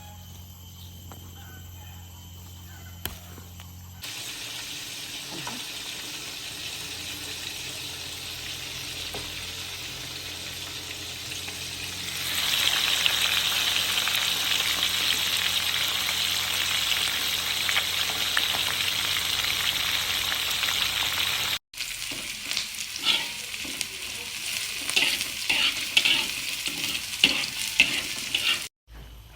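Food frying in hot oil in a pan: a steady sizzle that grows louder partway through, then, after an abrupt cut, a stretch of crackling with many sharp pops.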